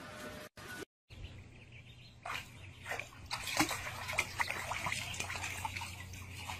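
Ducklings peeping rapidly and repeatedly, with light splashing of water in a shallow paddling pool; the peeping begins about two seconds in.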